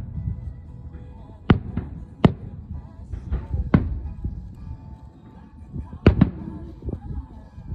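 Aerial firework shells bursting: several sharp bangs, some in quick pairs, over a low continuous rumble.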